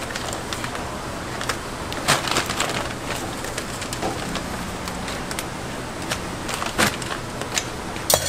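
A large plastic bag of frozen dumplings being cut open with scissors and handled: crinkling and snipping in irregular bursts, loudest a little after two seconds and near seven seconds, over a steady background hiss.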